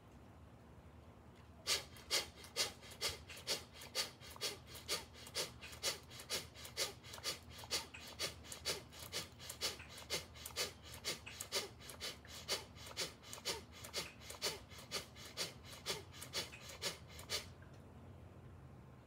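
A man's rapid, forceful pranayama breaths (bhastrika/kapalabhati breath infusion), about two strong, even strokes a second. They start about two seconds in and stop shortly before the end.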